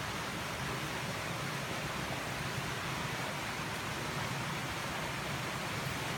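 Steady, even rushing hiss of outdoor background noise, with no distinct events.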